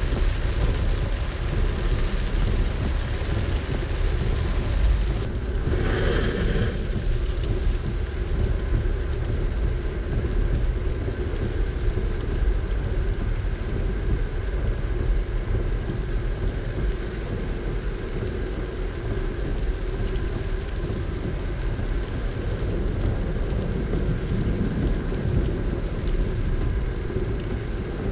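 Car driving in heavy rain, heard from inside: steady road and tyre rumble with the hiss of rain on the body and windscreen. The sound briefly changes about six seconds in.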